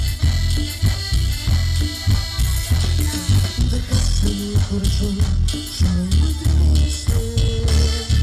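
A live Latin dance band playing: electric guitar, keyboard and drum kit over a heavy bass line, with a steady beat.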